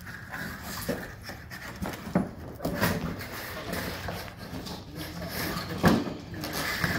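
Cardboard packaging scraping, rustling and knocking as a boxed solar panel is slid and lifted out of its shipping box, with a few louder knocks.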